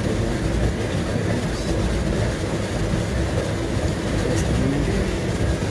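Treadmill running with someone walking on it: a steady rumble of the motor and the belt under the steps.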